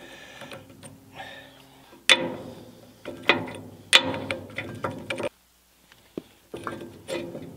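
A series of sharp metal clanks and knocks, each ringing briefly, as the pinion on an old cement mixer's jack shaft is worked loose by hand. There is a short silent break a little past halfway.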